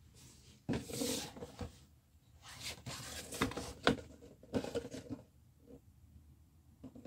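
A long cardboard toy box handled and turned over on a cloth surface: three spells of scraping and rustling with a few sharp taps of the box.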